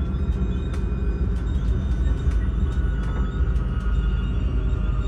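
Train running along the line, heard from inside the passenger car: a steady low rumble of wheels on track, with light scattered ticks and a faint high whine.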